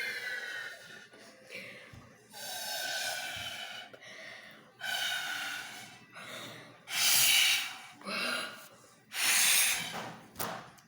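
Repeated puffs of breath blown through a drinking straw into slime to inflate a slime bubble, about five breathy blows with pauses between them.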